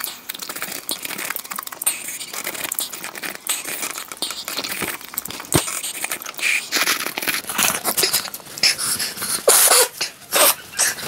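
Close-up eating sounds: chewing and crunching lotus root slices and slurping noodles, with chopsticks clicking against the bowl. The loudest bursts come near the end.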